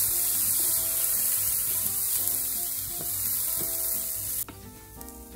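Rice sizzling in oil in a nonstick frying pan as it is stir-fried with a wooden spatula, over soft background music. The sizzling cuts off suddenly about four seconds in.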